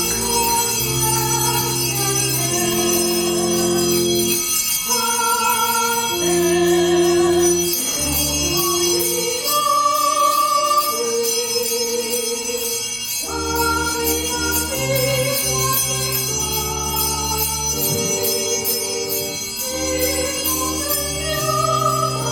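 A choir sings a slow hymn over sustained, held accompaniment chords that change every second or two.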